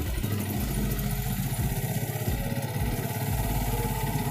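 Yamaha Vixion motorcycle's single-cylinder engine running while riding, with a steady rush of wind and road noise.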